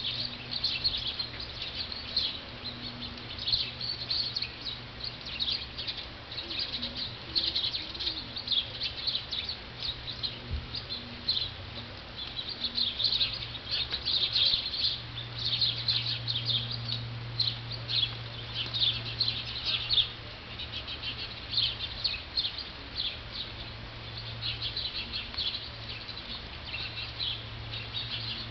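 Small birds chirping busily, a constant stream of short, high chirps, over a low, steady hum.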